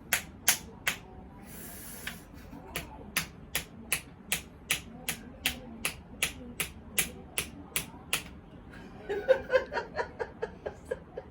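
Sharp, evenly spaced taps or clicks, about two and a half a second, that stop about eight seconds in.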